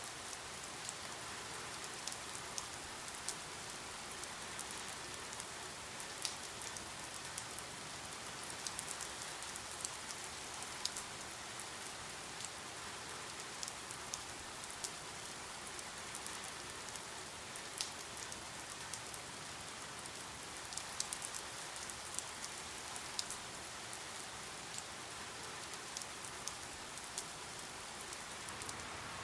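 Steady rain with many individual drops ticking sharply on a hard surface, scattered irregularly over a constant hiss.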